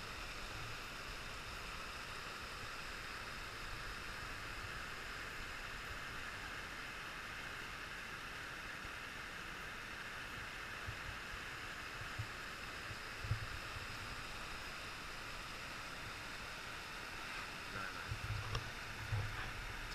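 Mountain stream rushing over rocks: a steady, even rush of water, with a couple of faint bumps midway.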